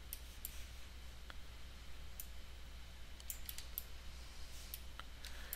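Irregular computer mouse clicks, about a dozen scattered sharp ticks, over a low steady hum.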